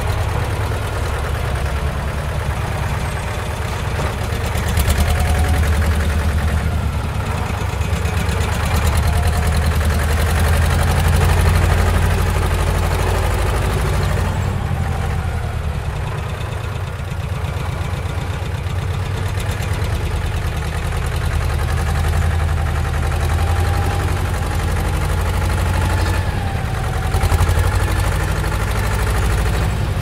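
Heavy construction-machinery engine running steadily with a deep rumble that swells and eases, and a faint wavering whine now and then.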